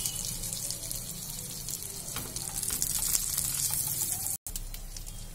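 Marinated chicken tikka pieces frying in hot oil and butter in a frying pan: a steady sizzle with fine crackling.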